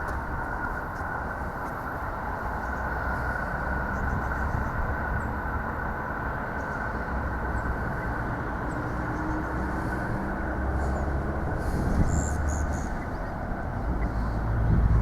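JR 209 series 3000 electric train running over the rails at a level crossing: a steady rumble that swells louder near the end, with a few faint clicks partway through.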